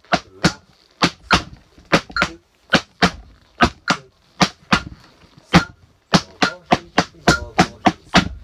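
Tap shoes striking the floor in a slow tap-dance combination of flaps, heel and ball drops and stamps, danced at tempo 70: sharp metal taps in uneven groups of two and three.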